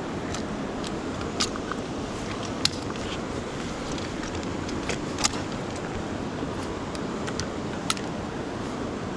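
Steady rush of river water flowing, with a few scattered sharp clicks and ticks.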